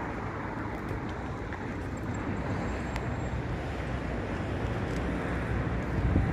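Steady outdoor background noise of road traffic and the fast-flowing, flooded river, with wind buffeting the microphone near the end.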